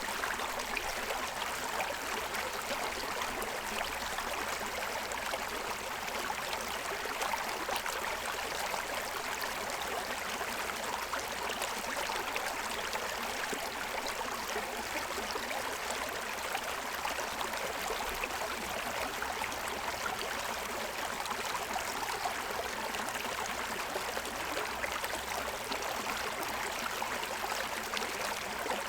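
Shallow stream running and splashing over the stones of its bed, with a steady rush of water and fine gurgles.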